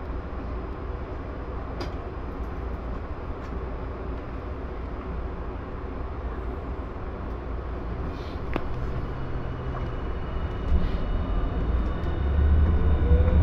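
Streetcar standing with a steady low hum inside the car. About twelve seconds in it pulls away: the motor whine rises in pitch and the low rumble of the wheels grows louder.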